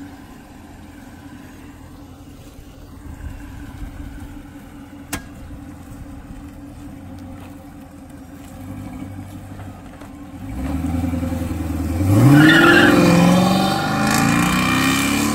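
Dodge Charger R/T's Hemi V8 running at a low steady rumble, then pulling away. About eleven seconds in it grows louder, and the note climbs as the car accelerates, loudest near the end.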